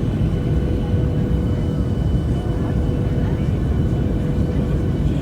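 Airliner cabin noise: a steady, loud rumble of engines and airflow with a constant whine held throughout.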